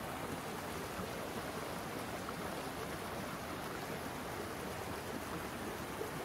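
Shallow stream rushing over rocks, a steady even rush of water.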